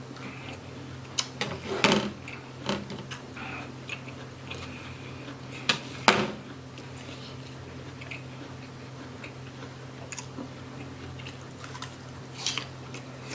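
A person chewing and biting crisp apple slices, with scattered crunches, the loudest around 2 and 6 seconds in, over a steady low hum.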